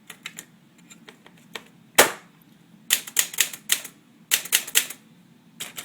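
Smith-Corona manual typewriter being typed on, its typebars clacking in short quick runs of several strokes, with one louder single clack about two seconds in.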